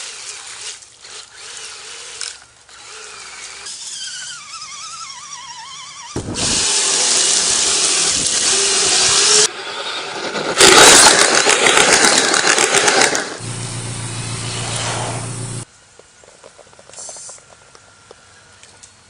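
Electric motor and drivetrain of a radio-controlled rock crawler running in spurts, a power-tool-like whir as the truck is driven. It is quiet at first, then runs loudly in two long bursts around the middle, then hums steadily for a couple of seconds before dropping back to quiet near the end.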